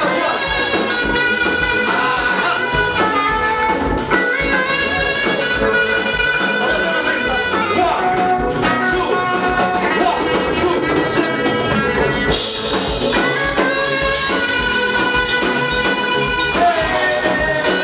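Live church praise music: a group singing with a backing band, steady beat throughout.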